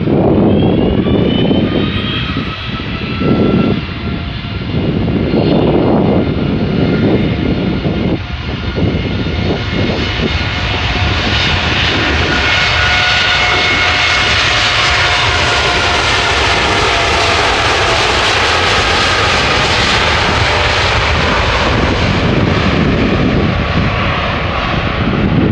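Boeing 787's twin turbofan engines spooling up for takeoff, with several whining tones rising over the first couple of seconds. The jet roar then swells as the airliner rolls past and accelerates away, loudest past the middle and easing near the end. Wind buffets the microphone in the first few seconds.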